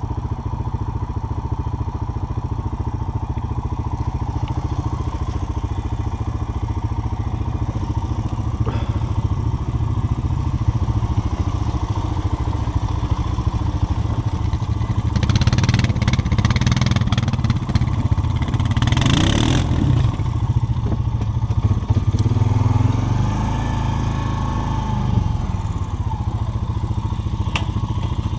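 Off-road vehicle engine running steadily as it is driven along a rough trail, getting louder and rougher for several seconds a little past halfway as it works down through a dip and back up.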